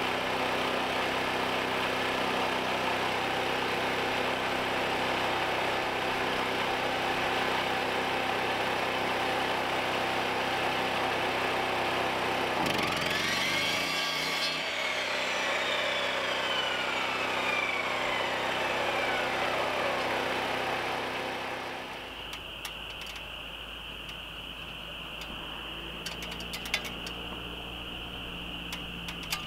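A sliding compound miter saw spins up and cuts about 13 seconds in, then its motor winds down over several seconds, all over a steady engine drone. Near the end the drone gives way to a quieter steady high-pitched trill with a few sharp taps.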